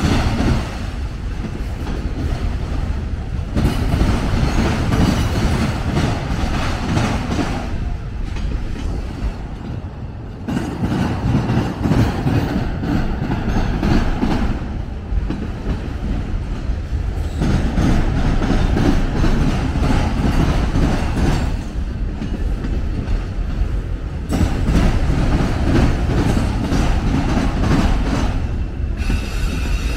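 CSX autorack freight train rolling past, its steel wheels on the rails making a continuous loud rolling noise that swells and eases every few seconds as the cars go by.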